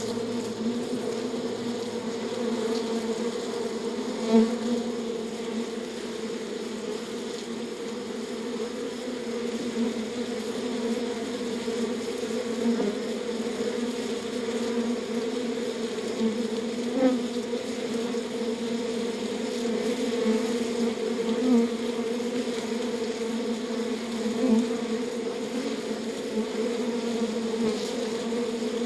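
Honeybee hive: many bees buzzing together in a dense, steady hum, with a few brief louder swells.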